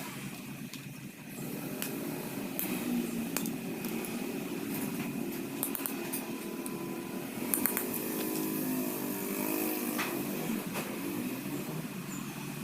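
An engine or motor running steadily with a wavering hum, with a few sharp metallic clicks.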